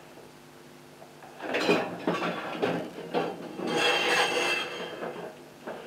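Scraping and rubbing of objects being handled on a workbench: several irregular strokes starting about a second and a half in, the longest and loudest around four seconds in.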